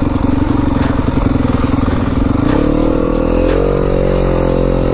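Enduro dirt bike engine running at steady revs, then revving up about two and a half seconds in and holding at the higher revs.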